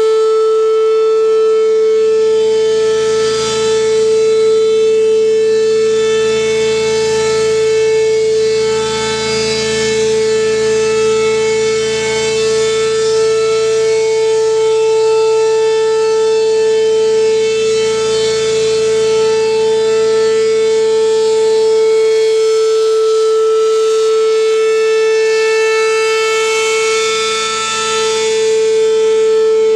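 Engine-driven rotating mechanical siren held at full speed: one steady, loud wail at a fixed pitch. The sound swells and fades slowly as the horn turns toward and away from the listener.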